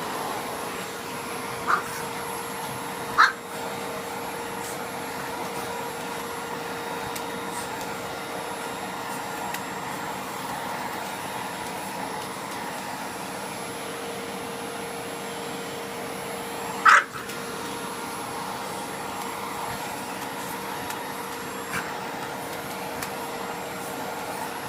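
Vacuum cleaner running steadily with a constant hum, broken by three short, sharp sounds, the loudest about 17 seconds in.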